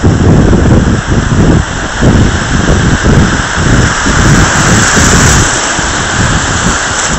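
Surf breaking and whitewater rushing, with heavy, gusty wind buffeting on the microphone. The hiss of the wash swells about two thirds of the way through.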